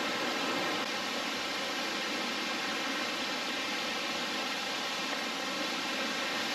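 Waterfall pouring down, a steady even rush of water.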